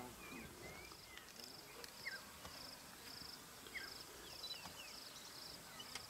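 Quiet bush ambience: an insect chirping high and short in a steady rhythm, about two chirps a second, with scattered brief whistled bird calls.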